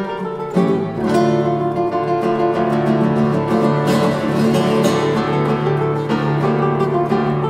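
Solo nylon-string classical guitar played live: a dense run of fast repeated plucked notes over a held bass note, getting brighter about four seconds in.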